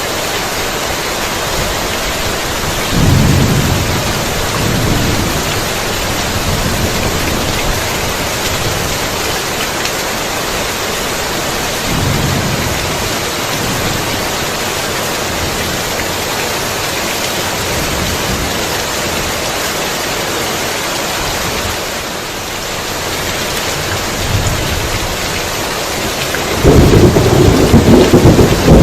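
Heavy rain falling steadily, with thunder rumbling a few times: once about three seconds in, more softly near twelve seconds, and loudest in a long deep roll near the end.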